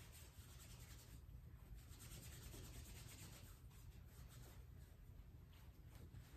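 Near silence: faint, irregular soft rustling and rubbing over a low room hum.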